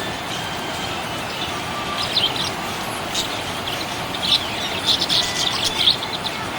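Budgerigar chirping: short, high chirps in scattered clusters that grow busiest about two-thirds of the way in, over a steady background hiss.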